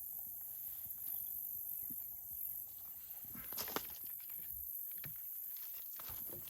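Steady high-pitched chorus of crickets, with a few short knocks and rustles about three and a half seconds in.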